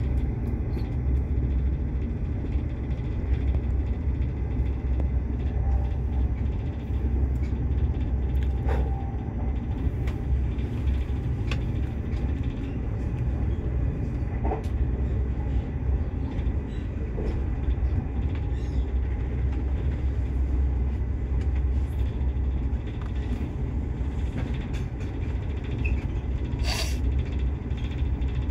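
Steady low rumble of a passenger train carriage running along the track, heard from inside the carriage, with scattered light clicks.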